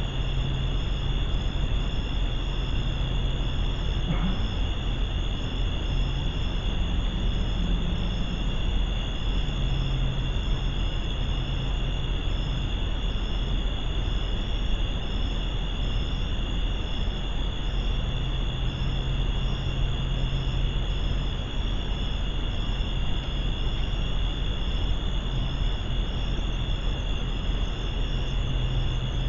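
Crickets and other night insects chirping steadily, a high pulsing chirp over a continuous insect trill, with a constant hiss and low hum underneath.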